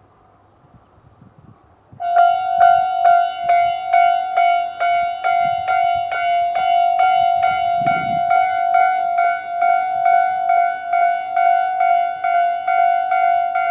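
Japanese railway level-crossing electronic warning bells, the standard crossing-alarm tone, starting abruptly about two seconds in and then ringing on in a fast, evenly repeated ding. The alarms on both sides of the crossing sound together, both at a quick tempo.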